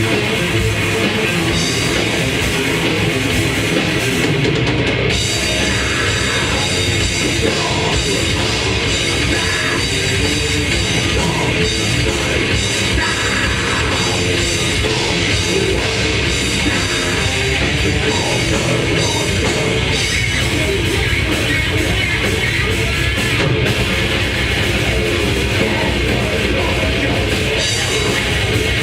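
A death metal band playing live: heavily distorted electric guitars over dense, fast drum-kit playing, loud and unbroken throughout.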